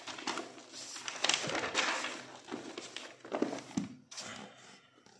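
Notebook paper rustling and crinkling as a page is turned, with handling noise and a few soft knocks.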